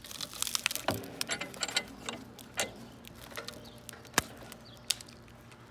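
Samsung Galaxy S7 phone's glass and casing cracking under crushing pressure in a vise: irregular sharp crackles and ticks, densest in the first two seconds, with one louder snap about four seconds in, as the screen gives way.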